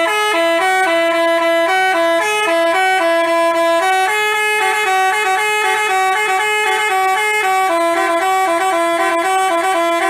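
Basuri telolet bus horn playing a quick, loud melody of stepped notes without a break.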